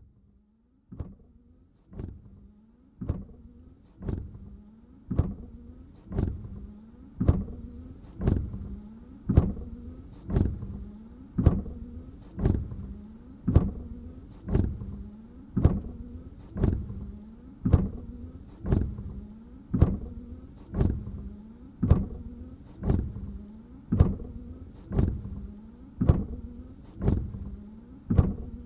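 Car windshield wipers sweeping back and forth at a steady pace. There is about one stroke a second, each with a sharp knock at the end of the sweep and the hum of the wiper motor fading after it. The strokes begin about a second in.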